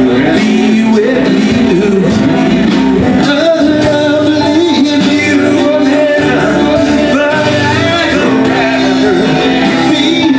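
Live band playing loudly: saxophone, keyboard, acoustic and electric guitars and drums, with a pitch-bending melody line over the steady beat.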